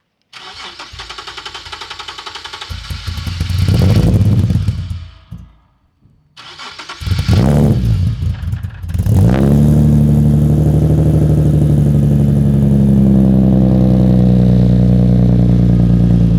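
Infiniti G37's V6, breathing through a newly fitted ISR single-exit GT exhaust, being started warm. The starter cranks and the engine fires and runs briefly, then dies away about six seconds in. On a second try it cranks again, catches with a couple of flares and settles into a steady, deep idle.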